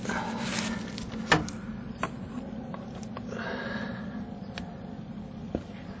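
Hand work on a wiring-harness bracket and cable in a car's engine bay: a sharp click a little over a second in, then several lighter clicks and some rustling of the cable, over a steady low hum.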